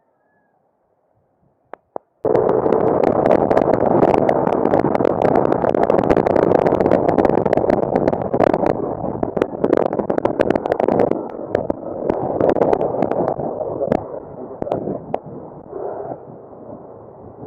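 Loud wind rushing and buffeting on an action camera's built-in microphone, full of crackles, starting suddenly about two seconds in after two clicks and easing off after about eleven seconds.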